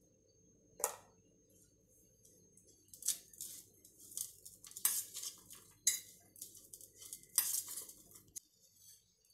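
A steel spoon scraping and clinking against a stainless steel bowl in irregular strokes as diced raw mango is stirred with spices, after one sharp clink about a second in; the sound cuts off abruptly near the end.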